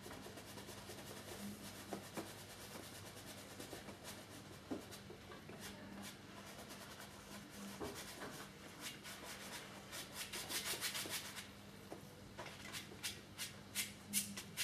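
Paintbrush rubbing and scrubbing oil paint on canvas in quick repeated strokes, busiest about ten seconds in, over a faint steady low room hum.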